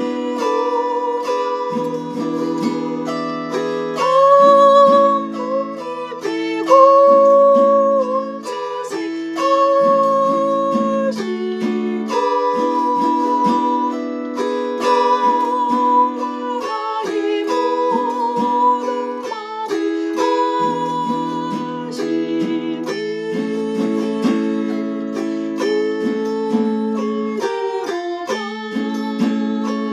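Chromaharp (autoharp-type zither) strummed and plucked in sustained chords, with a wavering melody line carried above the chords.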